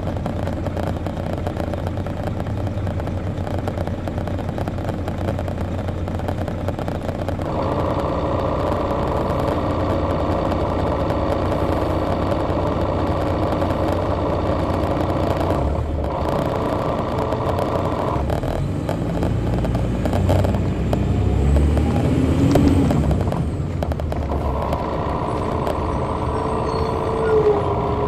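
Detroit Diesel Series 60 diesel engine of a 2002 MCI D4000 coach, heard from the rear seats while the bus drives. A steady whine joins about seven and a half seconds in, and the low engine note shifts and rises around twenty seconds in as engine speed changes.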